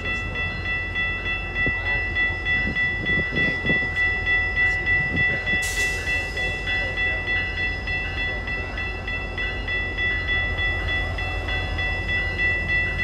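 A railway crossing bell rings steadily in even, rapid strokes over the low rumble of a GO Transit MP40 diesel locomotive rolling slowly into the station to stop. A short hiss comes about six seconds in.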